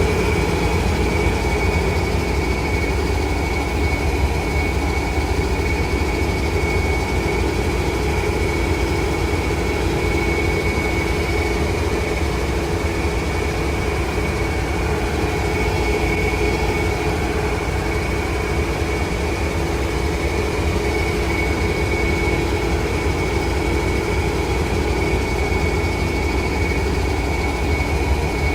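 MPI HSP46 diesel-electric locomotive idling while stopped at the platform: a steady low engine rumble with a constant high whine over it, unchanging throughout.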